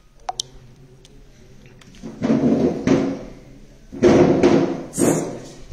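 Handling noise from a phone being moved and turned around in the hand. Two light clicks come near the start, then two loud stretches of rubbing and bumping, about a second each.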